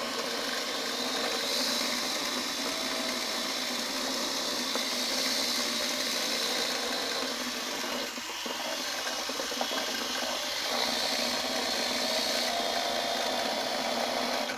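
Toy quadcopter drone's four small electric motors and propellers spinning on the ground with a steady high whine. It starts suddenly, dips briefly about halfway through, and dies away at the end.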